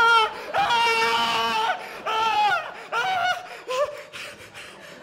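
A man screaming in staged terror: a string of high, drawn-out wails, each sliding down in pitch at its end, the longest about a second, then shorter and quieter cries after about three seconds.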